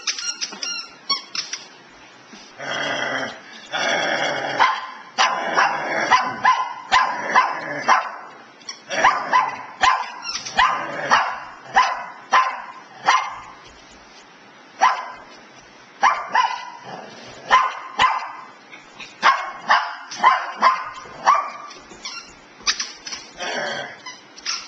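Dogs barking many times in quick runs of short, sharp barks during rough play.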